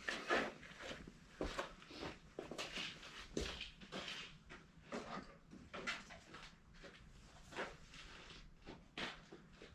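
Irregular clicks, clunks and rustling of tools and parts being handled, a few knocks a second, with no engine running.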